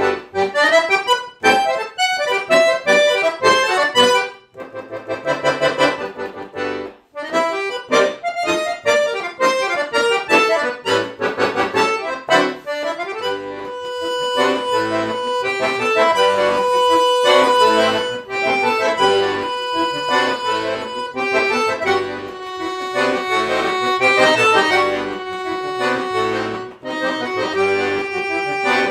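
Piano accordion playing solo: quick, detached chords and notes for the first half, then longer held notes with a melody moving over them.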